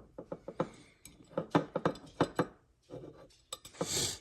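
Small steel gun parts clicking and clinking against each other and the aluminium lower receiver as the AR-15 bolt catch, its spring and plunger are handled and fitted, in a run of short irregular clicks. A sniff near the end.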